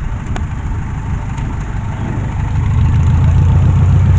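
An engine running with a low, steady rumble, growing louder about two and a half seconds in.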